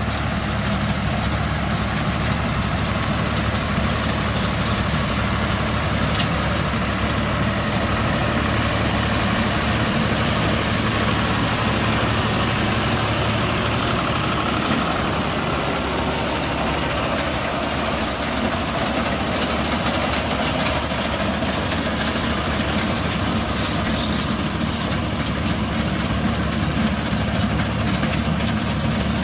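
Farm tractor's diesel engine running steadily under load, working a tractor-mounted reaper binder that is cutting wheat.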